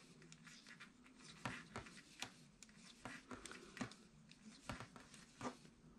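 Knitting needles clicking and tapping faintly as knit stitches are worked, a few irregular soft clicks over near-silent room tone.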